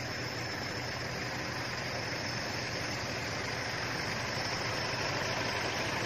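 Pickup truck engines idling and running slowly as the trucks move through a checkpoint gate, over a steady even hiss.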